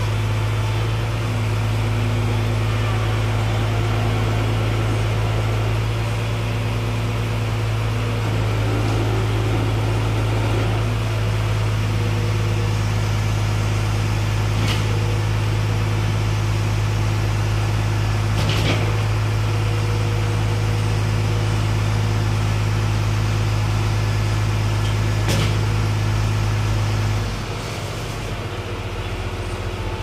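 Wheel loader's diesel engine running steadily at high revs, working its hydraulics to raise the bucket under the weight of a wrecked truck chassis, with a few sharp knocks along the way. About three seconds before the end the engine drops back and gets quieter.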